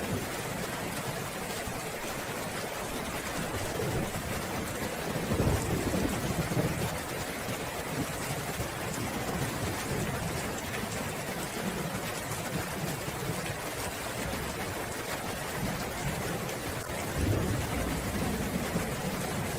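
Steady heavy rain falling, with two low rolls of thunder, one about five seconds in and another near the end.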